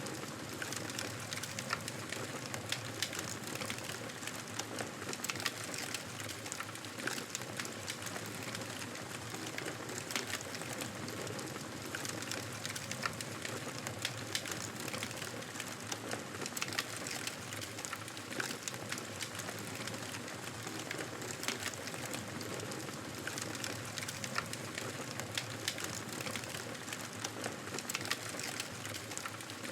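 Wood fire crackling in a fireplace: a steady hiss dotted with frequent, irregular sharp pops and snaps.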